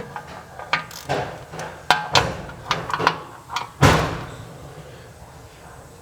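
Irregular metallic clanks and knocks of tools and parts being handled during a wheel hub bearing installation, with one heavy thump about four seconds in.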